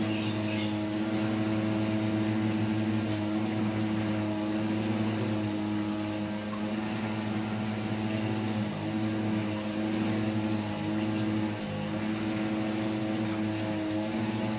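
Electric pet hair clippers running with a steady buzz as they shear a dog's coat.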